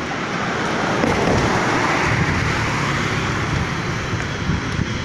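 A car passing close by on the road, its tyre and engine noise swelling for a couple of seconds and then fading, over steady traffic noise.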